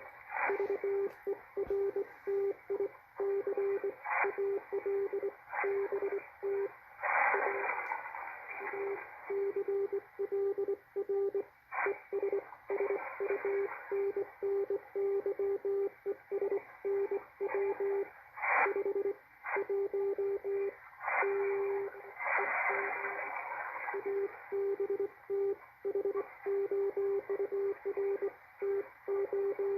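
Morse code (CW) signal received on shortwave through a Malachite DSP SDR receiver: a single low-pitched beep keyed on and off in dots and dashes, over band hiss with several surges of louder static.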